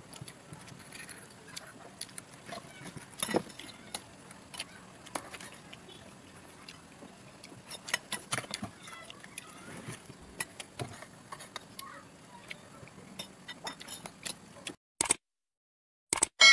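Eating at a table: irregular small clicks and taps of fingers working rice on a plate, over a faint steady hiss. About fifteen seconds in, the sound cuts to silence, and two sharp clicks come near the end.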